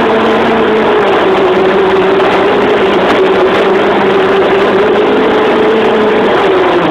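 Fishing boat's engine running steadily and loudly, with a constant droning hum that wavers slightly in pitch.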